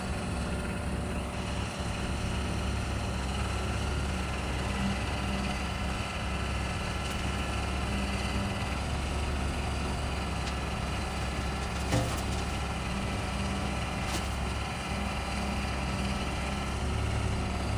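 Kubota tractor's diesel engine running steadily, loading compost with the front loader bucket, with a single short knock about twelve seconds in.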